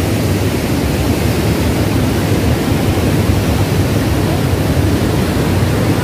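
Rain-swollen waterfall, with muddy floodwater rushing steadily over wide rock ledges and rapids.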